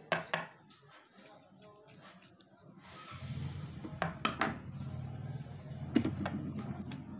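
Small metal sewing-machine shuttle parts clicking and clinking as they are handled and set down on a work surface, with sharp clicks just after the start, about four seconds in and about six seconds in. From about three seconds in, a steady low hum runs underneath.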